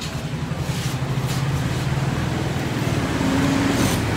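Motor vehicle engine running on the road close by, growing louder toward the end.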